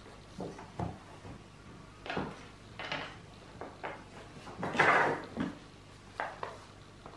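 Hands handling a crumpled brown paper parcel and small objects on a wooden table: a string of light knocks and paper rustles, the longest and loudest crinkle about five seconds in.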